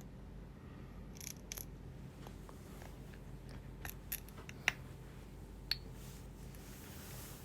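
Scattered faint clicks and small taps of hand repair tools on an iPhone 11 Pro Max as its screen is prised off, with a few sharper clicks about four to six seconds in, over a steady low hum.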